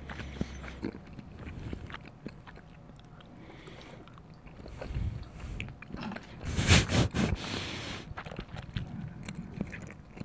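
Close-miked chewing of imitation crab stick, with many small wet mouth clicks. About six and a half seconds in there is a louder rustle lasting over a second.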